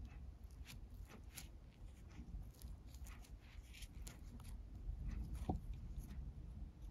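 Faint rustling and scraping of nylon paracord being worked and pulled through a tight tunnel of knotted paracord, with scattered small crackly clicks and one sharper click about five and a half seconds in.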